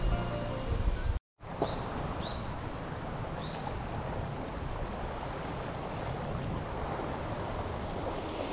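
Background music cutting off abruptly about a second in, then steady seaside wind and wave noise. Three short, high bird chirps come between about one and a half and three and a half seconds in.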